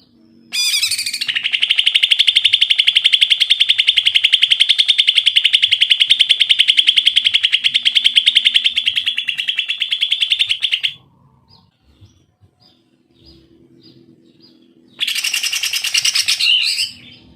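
Male green leafbird (cucak ijo) singing: a loud, very fast trill of rapidly repeated notes held for about ten seconds, then faint chirps, then a shorter, rougher burst of song near the end.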